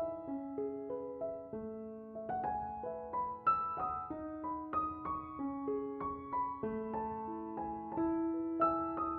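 Background music: a piano playing a slow melody of single notes over held lower notes.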